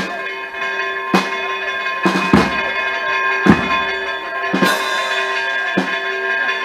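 Church bells ringing, struck about once a second, with the ringing of each stroke carrying on between strokes.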